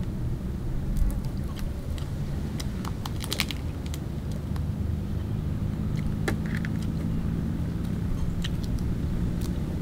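Crisp little cracks and clicks of a cooked mantis shrimp's shell being broken, peeled by hand and bitten, scattered irregularly, with a cluster about three seconds in. Under them a steady low hum carries on, like a distant motor or traffic.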